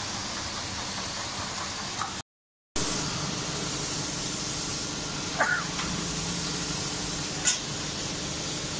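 Steady hum and hiss of a CNC hydraulic busbar cutting and punching machine running. It drops out for a moment a little over two seconds in. There is a short squeak a little past halfway and a brief sharp hiss near the end.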